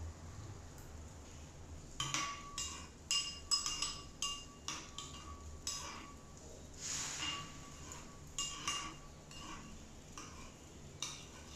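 Metal spoon clinking and scraping against a ceramic bowl while scooping food: a string of light, ringing clinks that starts about two seconds in.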